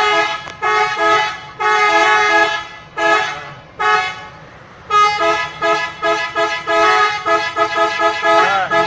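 Bus telolet horn being pressed, playing its multi-note tune: several longer blasts switching between two notes, a brief lull about four seconds in, then a quick run of short toots.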